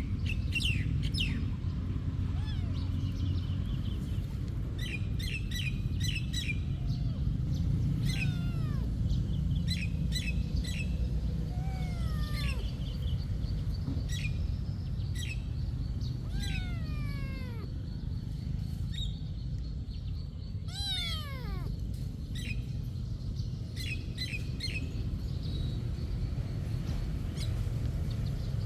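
A cat meowing about five times, each meow gliding down in pitch, among many short, sharp bird chirps, over a steady low rumble.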